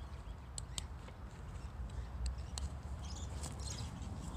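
Canvas motorcycle pannier being handled as its flap straps and plastic buckles are fastened: a few short, sharp high clicks over a low steady rumble.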